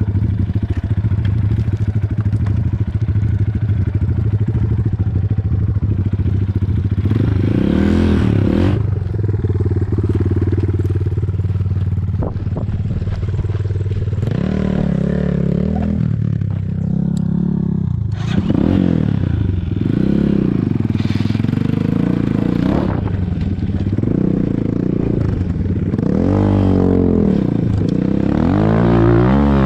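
Four-stroke enduro motorcycle engine idling steadily, then revved up and down again and again from about seven seconds in.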